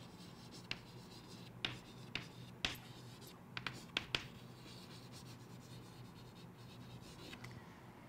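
Chalk writing on a chalkboard: short taps and scratches as a word is written, thinning out about halfway through, over a faint steady hum.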